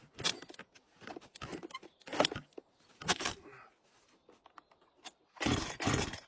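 Scattered clicks and scrapes of handling gear, then near the end a louder rough burst, typical of a chainsaw's pull-start just before the saw runs.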